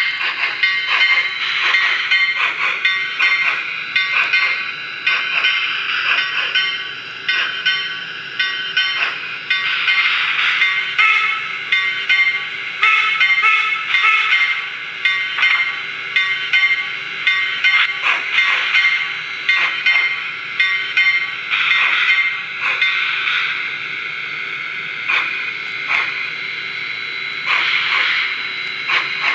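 Soundtraxx Tsunami sound decoder in a Mantua 2-6-6-2T logging locomotive model, playing steam-engine running sounds through its small speaker: a run of uneven exhaust chuffs and hiss. The sound is thin and tinny, with little bass.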